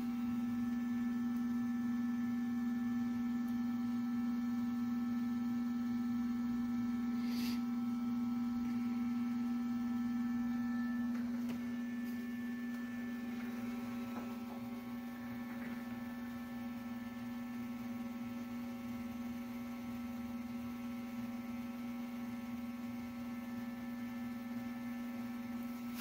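FLSun Q5's extruder stepper motor, fitted with a Micro Swiss extruder, whining with a steady tone as it slowly feeds 180 mm of filament for an E-step calibration. The tone gets a little quieter about eleven seconds in.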